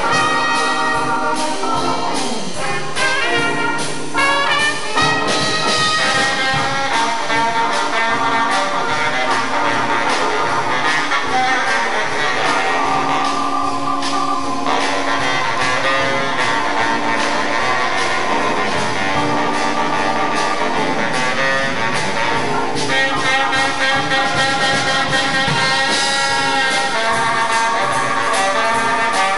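Live jazz band playing: trumpets, trombones and saxophones in full ensemble over drums.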